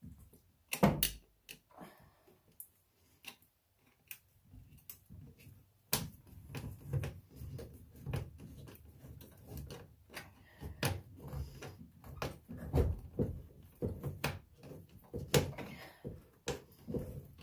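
Worm-drive hose clamp on a rubber pipe coupling being tightened with a hand driver: a string of small clicks and knocks as the screw turns, with one sharp click about a second in and a denser run of clicks over rubbing from about six seconds on.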